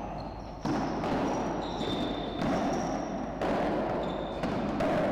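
Padel rally: the ball being struck by paddles and bouncing off the court and glass walls, about one sharp hit a second, each with a short echo.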